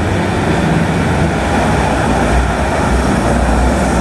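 Duisburg GT10NC-DU tram pulling into an underground station platform: a loud, steady rumble of the car and its wheels on the rails.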